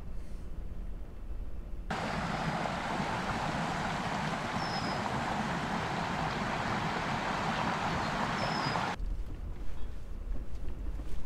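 Steady rush of flowing water, a dense even hiss that cuts in about two seconds in and cuts out about nine seconds in, with two short bird chirps over it. A low rumble fills the moments before and after.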